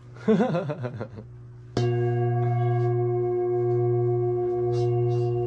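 Large metal singing bowl held close to a listener's head. A short warbling sound comes in the first second; then the bowl is struck about two seconds in and rings on steadily, a deep hum with several higher overtones that throbs slowly.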